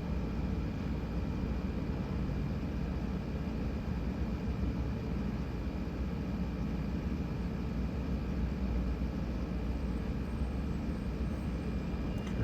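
Steady low rumbling background noise with a faint steady high tone, unchanging throughout.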